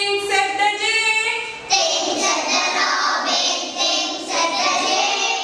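Young schoolgirls singing a children's poem set to a simple tune, the sound turning fuller and brighter about a third of the way in.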